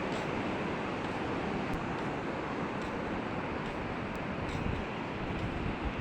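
Sea surf washing steadily on a beach, a continuous even rush of waves.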